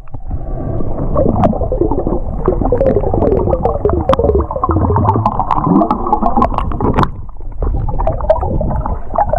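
Underwater sound through an action camera's waterproof housing: muffled gurgling of bubbles and moving water, full of short gliding pitch sweeps, with scattered sharp clicks.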